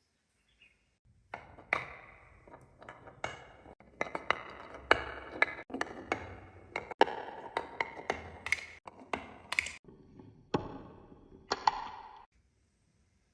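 Marbles rolling and clattering down a marble run track: many sharp clicks and pinging knocks over a steady rolling rattle. It starts about a second in and stops about a second before the end.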